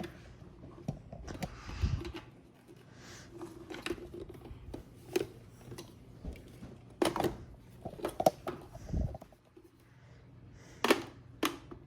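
Irregular clicks and knocks of hard plastic being handled, from the parts of a dinosaur action figure being fitted together, with a couple of duller thumps.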